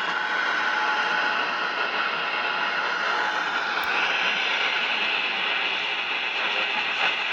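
Steady static hiss from the receiver of a Browning Baby Bird CB radio.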